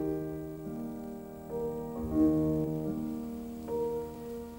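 Background piano music: a slow, quiet melody of held notes.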